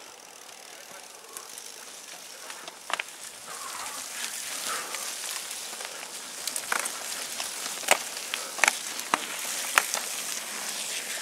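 Mountain bikes riding past on a muddy, leaf-strewn forest trail: tyres hissing and crackling through mud and wet leaves, growing louder as the riders come close, with several sharp clicks and knocks from the bikes from about three seconds in.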